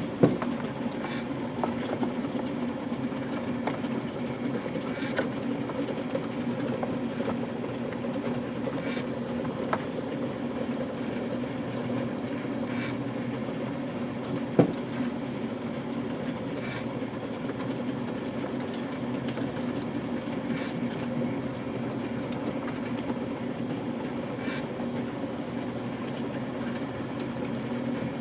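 O-scale electric model train equipment running: a steady motor hum with faint ticks every few seconds and a few sharp plastic-and-metal knocks.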